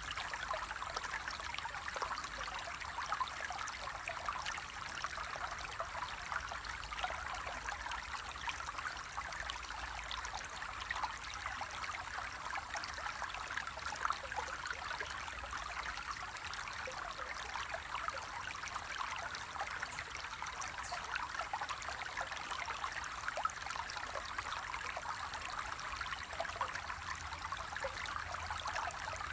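Water flowing in a small stream: a steady babbling trickle made of many small splashes and gurgles.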